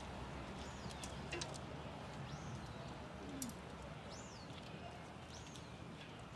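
A bird chirping, four short high arched calls about a second or two apart, over faint low outdoor background noise with a few small clicks.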